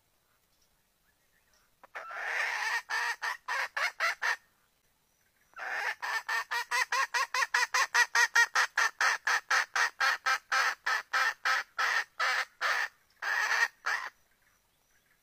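Wild red junglefowl hen calling in two runs of rapid, evenly paced notes, about five a second. A short run comes about two seconds in, and after a brief pause a longer one lasts about eight seconds. It is the hen's call that draws a rooster to her.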